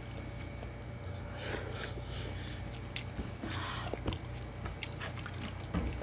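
People chewing and smacking their lips while eating rice and meat stew with their hands, with scattered small clicks and a couple of brief soft hisses over a steady low hum.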